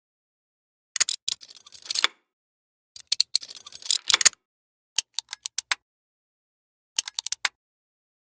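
A run of separate mechanical clicking and clattering effects from small gears and device mechanisms, each under about a second and a half, with dead silence between them. The first two are denser rattles; the last two are quick series of about six sharp clicks each.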